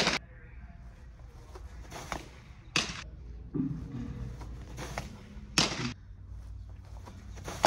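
Pitched softballs smacking into the catcher's glove, a sharp pop every few seconds with fainter knocks between, each briefly echoing in the big indoor hall.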